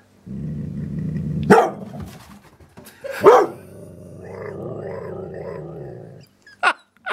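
Young Dalmatian–Border Collie cross growling low, then barking sharply twice, about a second and a half and three seconds in, at her own reflection in a mirror. A long wavering grumble follows, her 'talking' between barks, and a short bark comes near the end.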